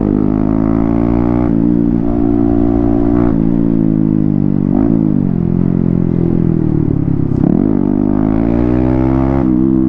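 Yamaha MT-15's 155 cc single-cylinder engine running through an open pipe with its silencer removed, a loud, bassy exhaust note. The revs rise and fall several times.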